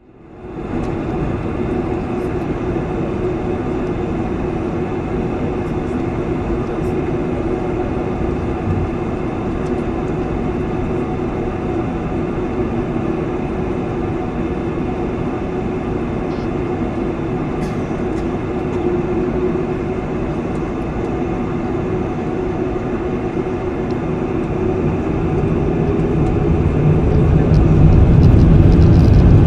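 Cabin noise heard over the wing of a Boeing 747-400 as it taxis: its four turbofan engines run at a steady hum with a held tone, growing louder and deeper over the last few seconds.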